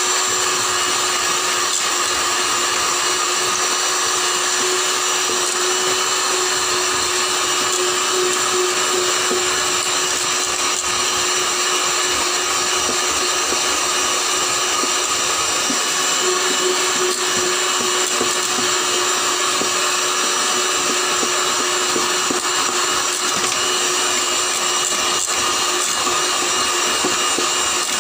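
Electric hand mixer running steadily, its beaters whipping chilled whipping cream in a metal bowl: a constant motor whine with no change in speed.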